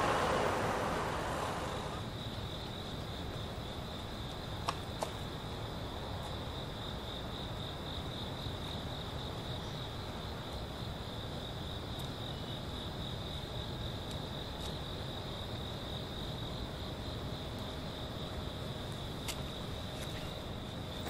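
Crickets chirping in a steady, pulsing chorus. A rushing noise like distant city traffic fades out over the first two seconds, and a few faint clicks are heard around five seconds in and again near the end.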